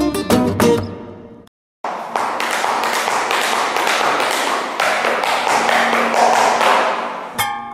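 Flamenco guitar music fades and cuts off briefly, then a long run of rapid flamenco footwork (zapateado): dense, closely spaced stamping taps for about five seconds. The guitar comes back in near the end.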